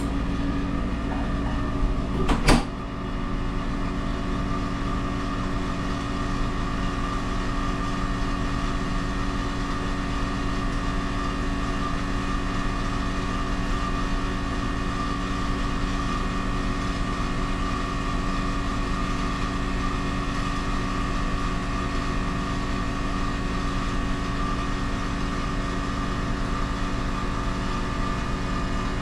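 Steady machinery hum made of many steady tones, with one sharp click about two and a half seconds in, while a Hoshizaki ice maker that has just been switched to ice sits in a pause before it starts its cycle.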